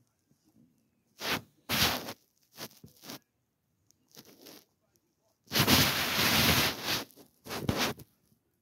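A white cat licking and grooming its fur right by the microphone: a series of short rustling, scraping bursts. The longest and loudest lasts about a second and a half, just past the middle.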